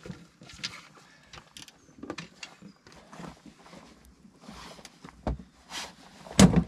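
Footsteps in waders scuffing and knocking over rock, with tackle clattering now and then, and a louder thump near the end.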